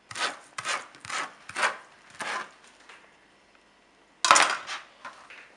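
A kitchen utensil scraping on a hard surface: five quick strokes in the first two and a half seconds, then one louder scrape about four seconds in.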